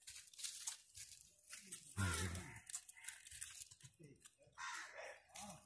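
Dry crinkling and crackling rustles, with a short low voice about two seconds in.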